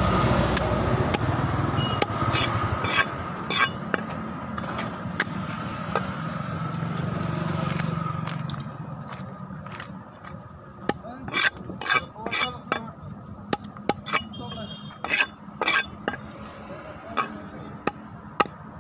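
Knife scraping scales off a small tilapia and tapping against a wooden chopping stump, in a series of sharp clicks and knocks, thickest about two to four seconds in and again around the middle. A low background rumble fades out about halfway through.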